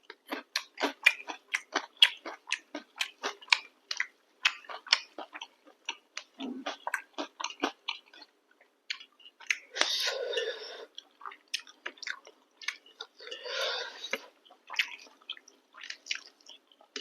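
Close-miked chewing of chicken curry and chapati: a steady run of wet mouth smacks, about two to three a second, with two longer, noisier stretches in the second half.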